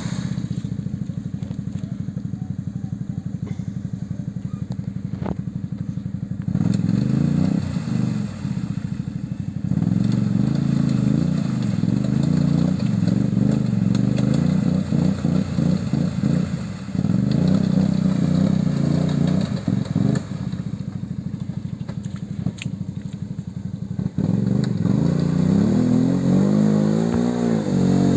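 Quad bike (ATV) engine running under load as it pushes through deep mud and water, revving up and easing off in several surges; the revs climb near the end.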